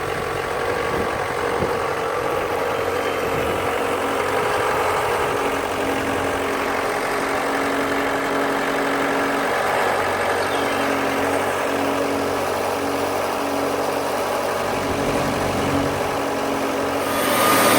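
Engine of a Wood-Mizer portable bandsaw mill running steadily, growing louder just at the end.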